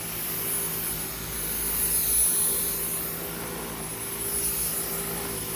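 Dyson V10 Total Clean cordless stick vacuum running on carpet, a steady high motor whine over airflow hiss that swells and eases as the head is pushed back and forth, loudest about two seconds in.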